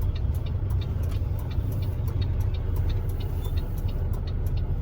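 Semi truck's engine running with a steady low rumble, with faint scattered ticks over it.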